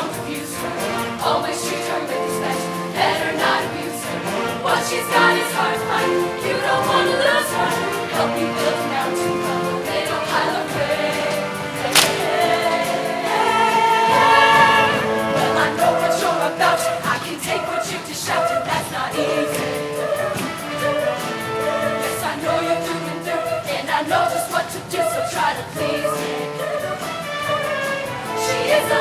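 A choir singing with band accompaniment, with a sharp percussive hit about twelve seconds in.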